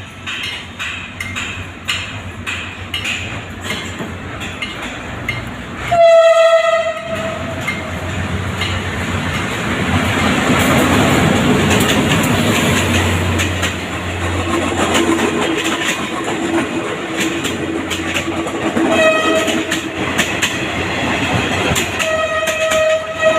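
Philippine National Railways train passing and sounding its horn. There is one loud blast about six seconds in and shorter blasts near the end. In between, the train's rumble and wheel clatter swell as the cars roll by.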